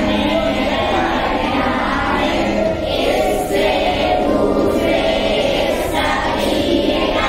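A group of girls chanting a prayer together in unison, many voices singing as one choir.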